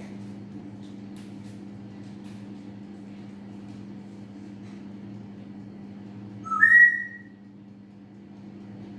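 A short, loud two-note whistle about two-thirds of the way in, a lower note jumping up to a higher one held briefly, over a steady low hum.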